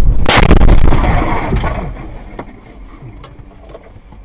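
A car collision: a sudden loud impact about a third of a second in, with crunching and rattling that dies away over the next second and a half.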